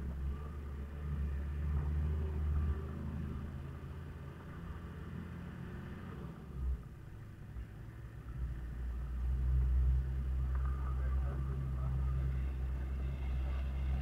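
Toyota Land Cruiser HZJ78's 1HZ diesel engine and the truck rumbling along a dirt track, heard from inside the cab. The rumble eases about six seconds in, with a brief knock, then grows again about two seconds later as it picks up.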